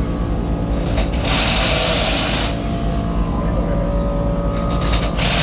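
Steady low machine rumble, with two bursts of hiss that start and stop abruptly, one about a second in lasting over a second and another starting near the end.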